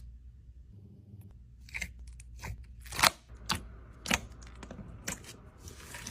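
Slime being squished and handled, giving irregular crackles and crunches, the loudest about three seconds in.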